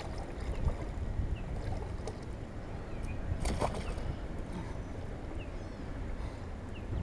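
A large carp splashing into shallow creek water as it is released, a sudden burst about halfway through, over a steady low rumble.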